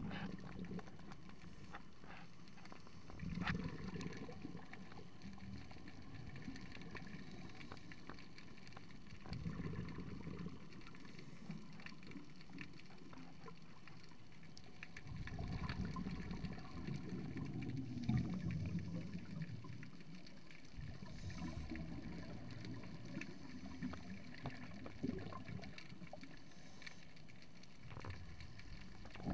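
Underwater noise picked up by a submerged camera: a low rumble that swells up for a few seconds at a time, several times, over a steady faint hiss with scattered clicks.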